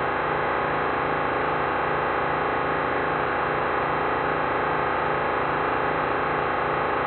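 Dense electronic drone from a MaxMSP patch sonifying a live video feed of the painting: many sustained tones layered together with a distorted edge, over a regular low pulse.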